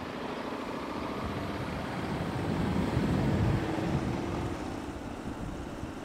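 Running noise of a slow-moving motor vehicle: a steady engine hum under road and air noise, swelling louder for about a second and a half around the middle.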